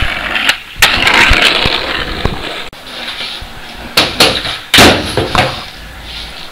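Skateboard wheels rolling on a hard surface, broken by several sharp clacks of the board popping and landing. The loudest come about four to five seconds in.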